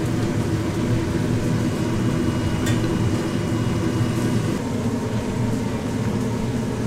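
Steady low mechanical hum, like a kitchen fan, with one sharp click near the middle.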